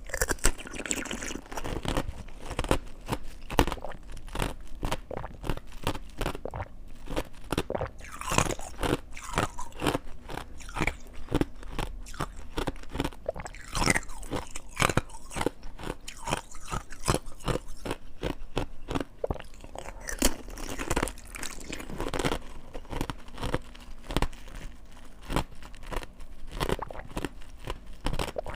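Ice being bitten and chewed close to the microphone: a dense, uneven run of sharp crunches and cracks, with some bites much louder than others.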